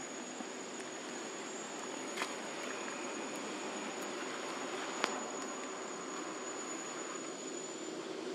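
Outdoor ambience with a steady background hiss and a thin, steady high-pitched insect trill that stops shortly before the end. Two sharp clicks come through, about two seconds in and about five seconds in.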